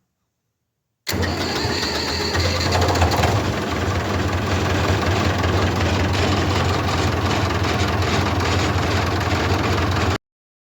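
David Brown 1690 tractor's diesel engine running steadily for about nine seconds, starting and stopping abruptly.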